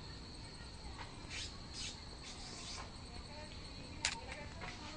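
A dog gnawing a bone, giving a few short scratchy crunches, over a steady high insect drone, with a sharp click about four seconds in.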